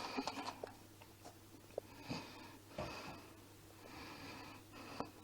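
Faint handling sounds: small sharp clicks and soft rustles, over a steady low hum.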